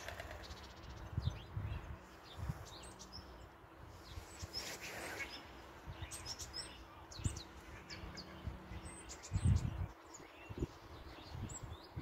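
Small songbirds giving scattered short, high chirps over quiet outdoor background, with low rumbling bumps on the microphone, loudest a little before the end. An engine from just before dies away at the very start.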